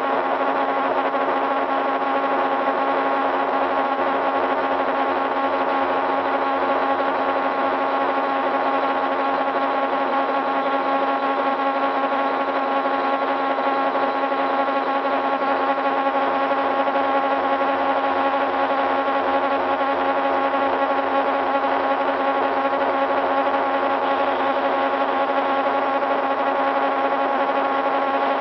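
Metal lathe running steadily: a constant machine whine and buzz made of several fixed tones over a noisy hiss, with no change in speed.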